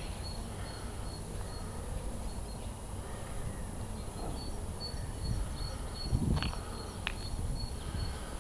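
Outdoor street ambience from a walking handheld camera: a steady low rumble of wind and handling on the microphone, with faint high repeated chirping. Two short knocks come about six and seven seconds in.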